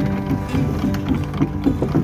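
Background music with short, repeated pitched notes over a steady low bed.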